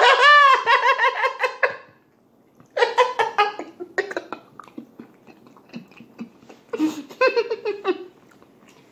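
A man laughing hard in bursts: a long, high laugh at the start, then shorter bursts of laughter about three and seven seconds in, with a few faint clicks between them.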